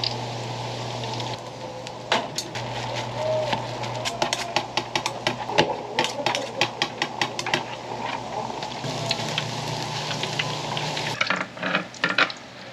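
Fish cakes frying in hot oil with a steady sizzle. From about two seconds in, a run of quick clicks and scrapes of a knife on a plastic cutting board as fish paste is spread and rolled. Near the end come more metal clicks over the sizzle of an oiled griddle.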